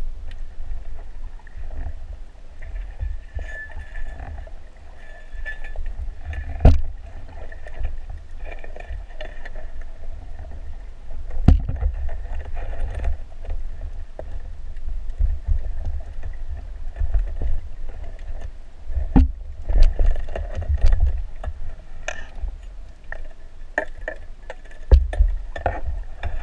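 Muffled underwater sound picked up through a camera's waterproof housing: a steady low rumble of moving water, broken by a few sharp knocks and clicks, the loudest about seven seconds in.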